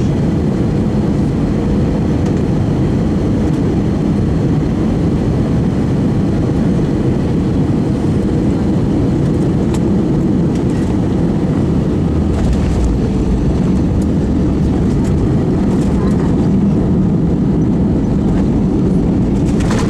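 Steady noise of engines and rushing air heard inside an Airbus A319's cabin during the landing, with a deeper rumble setting in about twelve seconds in.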